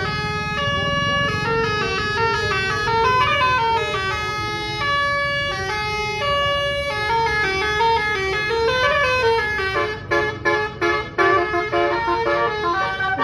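Basuri-type telolet bus horn playing a melody of stepped multi-tone notes, with a couple of slides up and back down. In the last few seconds the notes turn into short, choppy toots.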